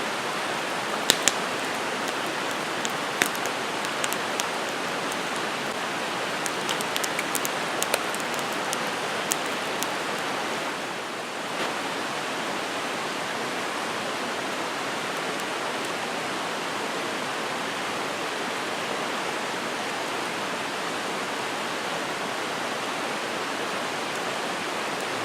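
Campfire crackling with sharp pops, mostly in the first half, over a steady rushing hiss.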